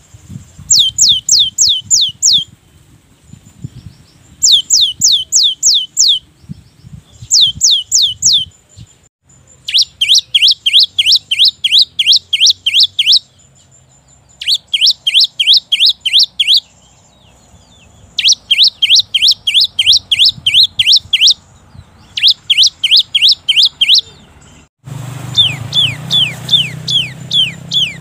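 Cinereous tit (gelatik batu) singing its long 'wucit-wucit' song. It is a rapid string of sharp whistled notes, each sweeping steeply down in pitch, given in bursts of four to twelve notes with short pauses between. About three seconds before the end a low steady background noise comes in under the song.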